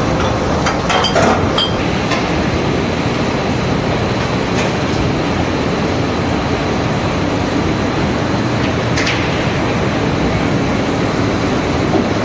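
Kitchen-waste sorting and conveying machinery running: a loud, steady mechanical din, with clattering knocks in the first couple of seconds as the sorting machine's rotating fingers churn the waste.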